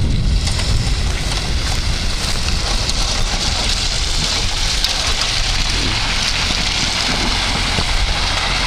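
Steady road noise of a vehicle driving on a rough road: a constant low rumble under an even hiss.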